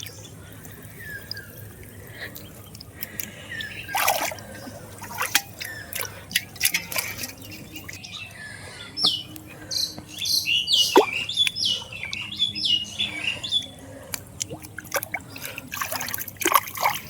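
Water splashing and dripping in scattered short bursts, with birds chirping in a quick run of short calls around the middle.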